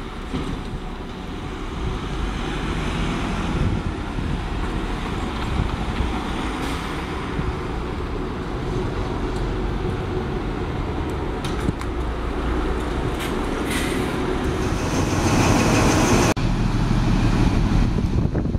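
Single-deck bus engine running as the bus pulls into a bus station and comes close, growing louder, over traffic noise, with a short hiss near the end of its approach. Then the sound changes suddenly to a High Speed Train's Class 43 diesel power car running at a platform.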